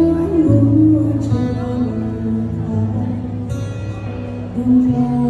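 A woman singing through a microphone and PA speaker to an acoustic guitar, holding long notes that slide in pitch over steady low guitar notes.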